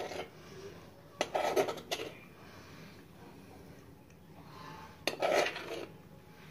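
A spoon clinking and clattering against a bowl in two short bursts, about a second in and about five seconds in, while spoonfuls of spice are added to raw chicken wings.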